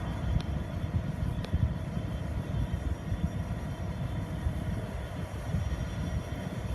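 Two 82 class diesel-electric locomotives hauling a coal train away from a stand: a steady low engine rumble with faint steady whine tones above it.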